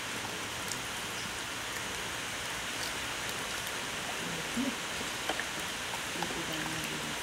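Light rain falling steadily, with a few scattered clicks of drops.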